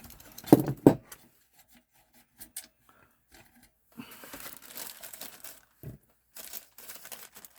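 Handling noise from taking a desktop computer apart: two loud knocks in the first second, then scattered clicks and stretches of rustling and scraping as panel and drive parts are worked loose.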